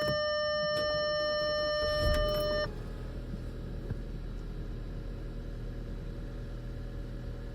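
A steady electronic tone sounds for about two and a half seconds, then the Audi A4's 2.0 TFSI four-cylinder engine cranks and starts a little after two seconds in, the tone cutting off as it catches, and settles into a steady low idle.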